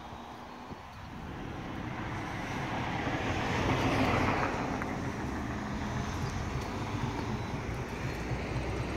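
Road traffic: a passing vehicle's noise builds to its loudest about four seconds in, then eases into a steady background hum.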